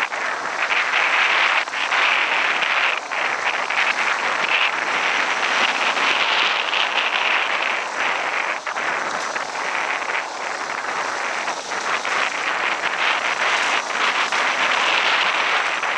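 Dual-sport dirt bike running steadily while riding a dirt trail, its engine and the ride noise blended with wind rushing over the on-bike microphone.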